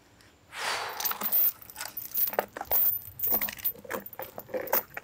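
Metal chain clinking and rattling in irregular bursts as it is handled and wrapped around a log for lifting.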